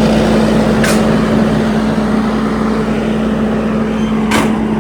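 Kubota SVL75-2 tracked skid steer's diesel engine running at a steady speed, smooth and even with no misses. Two short sharp clicks sound over it, about a second in and near the end.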